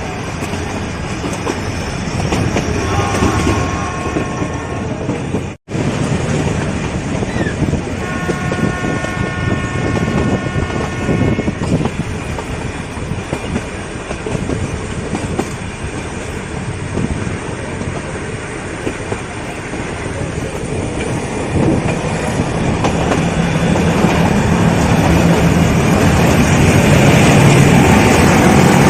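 Nilgiri Mountain Railway toy train running along the track, with two blasts of the locomotive horn: a short one about three seconds in and a longer one about eight seconds in.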